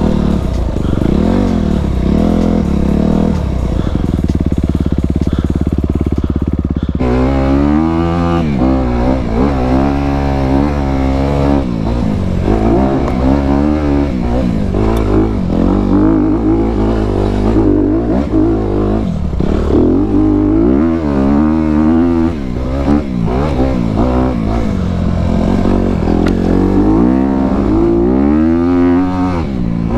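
Honda CRF250RX dirt bike's single-cylinder four-stroke engine under way, with the revs held fairly steady for a few seconds, then rising and falling over and over from about seven seconds in as the throttle is worked.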